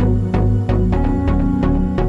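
Background music with a steady beat of about three strikes a second over sustained notes and a strong bass line.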